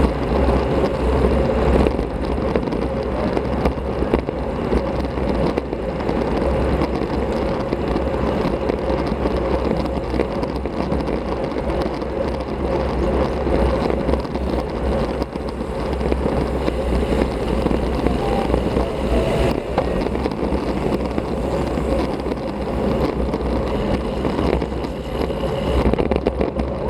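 Steady wind rush buffeting an action camera's microphone as a road bike rides along, with tyre and road noise underneath.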